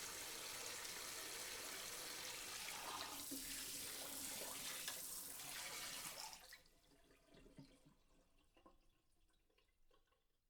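Water spraying onto dishes in a sink, a steady hiss that cuts off about six seconds in. Faint drips and small ticks follow.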